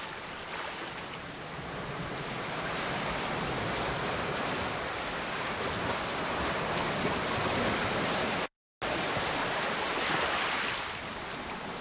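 Steady rushing background noise, like hiss or air noise, with no voices or music. It cuts out completely for a moment about eight and a half seconds in, then resumes.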